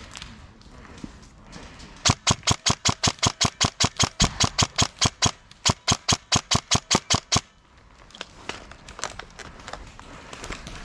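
Airsoft gun firing a rapid, evenly spaced string of loud shots, about six a second, for roughly five seconds starting about two seconds in, then stopping abruptly.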